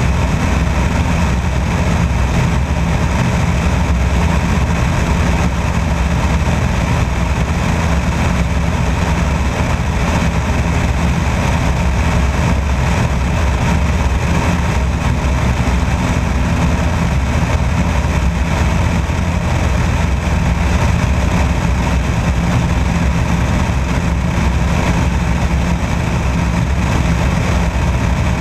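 Light airplane's piston engine and propeller droning steadily in level flight, with a rush of wind over the airframe.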